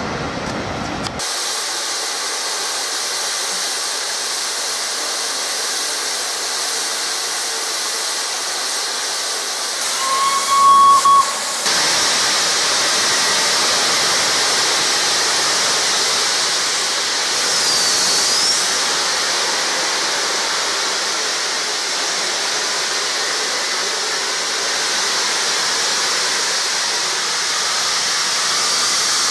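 Steam hissing steadily from the standing A1 Pacific steam locomotive 60163 Tornado, growing louder about twelve seconds in. A short whistle note sounds just before the hiss swells.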